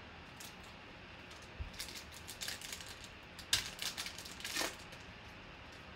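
The foil wrapper of a Panini Prizm trading-card pack crinkling and tearing open in the hands. It sounds as a run of sharp crackles beginning about two seconds in, loudest around three and a half seconds in.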